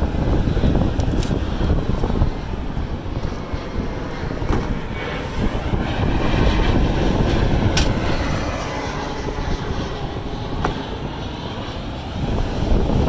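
Loud, steady rumbling drone of Carrier rooftop HVAC units running, their fans and blowers moving air, with a few faint clicks.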